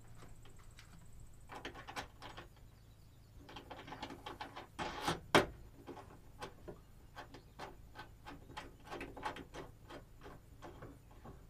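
Small metal clicks and rattles of battery cables being fastened by hand: cable lugs fitted and a terminal nut tightened on a positive bus bar, with two sharper clicks about five seconds in and a run of light ticks after.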